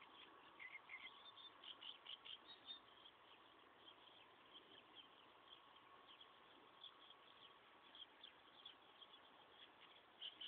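Near silence: faint outdoor ambience with scattered short, high chirps and a faint steady tone underneath.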